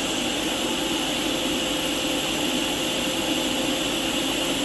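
Cutting torch blowing a hole through metal: a steady, hissing rush with a faint high whine.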